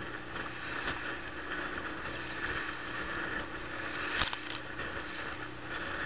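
Small motorboat under way in choppy sea: its engine runs with a steady hum under a constant wash of wind and water noise, and a sharp knock comes about four seconds in.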